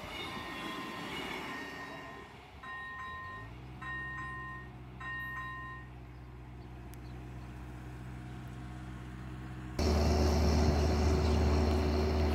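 A diesel railcar runs past while the level crossing's electronic bells keep up a repeating two-tone ring. The bell gives a few last separate tones and stops about six seconds in. A steady engine hum follows and turns much louder suddenly near the end.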